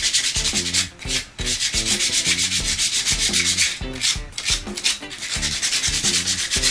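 Sandpaper rubbed by hand in fast back-and-forth strokes, several a second, with short breaks about a second in and again around four seconds.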